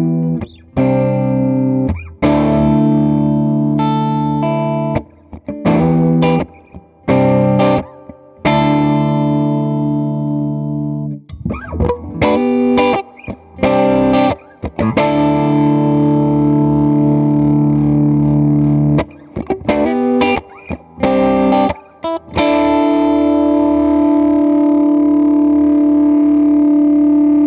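Electric guitar, an Electra MPC with its MPC-12 compressor module engaged, strumming a few chords, some cut off short, then about 22 seconds in striking one chord and holding it. The held chord stays at an even level without fading: in this switch position the compressor keeps the sustain as loud as the first hit.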